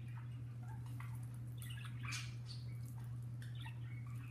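Pet budgerigars giving soft, scattered chirps and chatter in a few short clusters, over a steady low hum.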